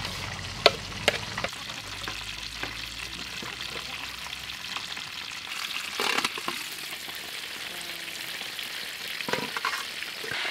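Whole stingray deep-frying in oil in a wok, a steady sizzle, with two sharp metallic clinks about a second in and a louder brief clatter around six seconds in.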